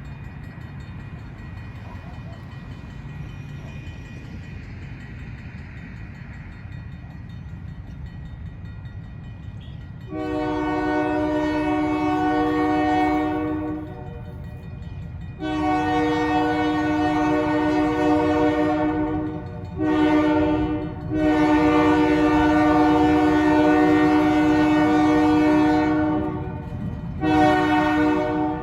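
Diesel locomotive engine rumbling as it approaches, then its air horn sounding a chord in the grade-crossing pattern: a long blast about ten seconds in, a second long blast, a short one and a long one, with another blast starting near the end.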